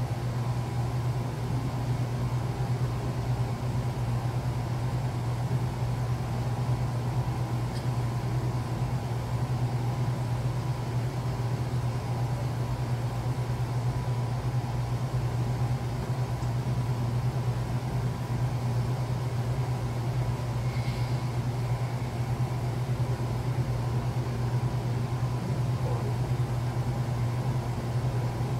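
Steady low hum of an air-conditioning unit running, unchanging throughout.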